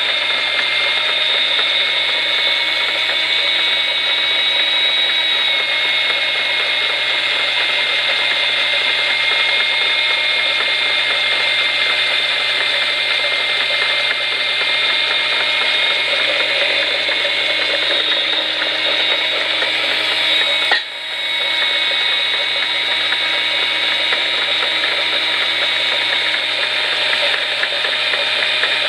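Electric die grinder (rotary tool) running at high speed with a steady high whine, its bit cutting into a rubber stopper that turns in a running lathe. About 21 seconds in there is one sharp click and a brief drop in level.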